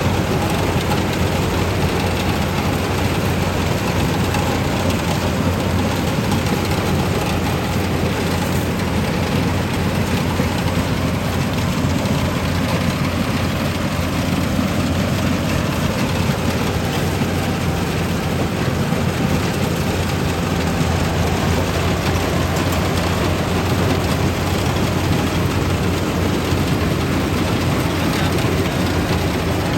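Yanmar 850 rice combine harvester running steadily under load while cutting rice: a constant diesel engine hum with the even rushing noise of the threshing machinery.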